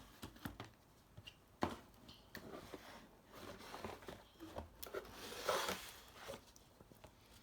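Plastic toy pieces being handled: scattered clicks and knocks, with a crinkling rustle about five seconds in.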